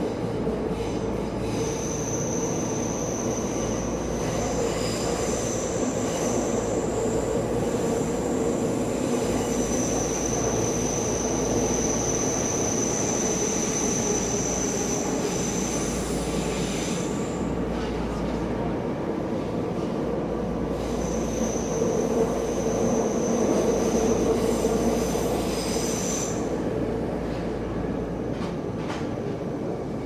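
Tokyo Metro Marunouchi Line subway train running between stations, heard from inside the car: a steady rumble of the wheels on the rails. A high, thin wheel squeal rings over it through most of the first half, breaks off, and comes back for a few seconds later on.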